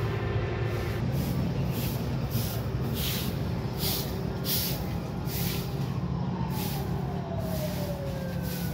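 Passing road traffic: a heavy vehicle's engine runs steadily. A whine falls in pitch over the last couple of seconds as it goes by. Through the middle there is a series of short hisses, about two a second.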